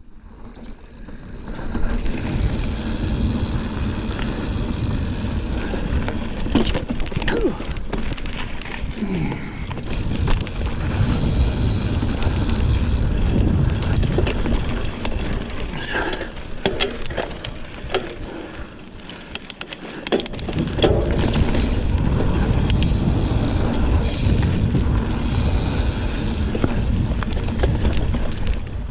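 Giant Fathom 29 2 mountain bike rolling along a dirt trail, with tyre rumble and scattered clicks and rattles from the bike over bumps. It quietens briefly about two-thirds of the way through, then picks up again.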